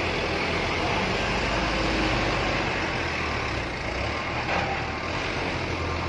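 Diesel engines of a coach bus and a cargo truck running steadily as they round a steep hairpin bend: a low engine rumble with road noise, and no horn.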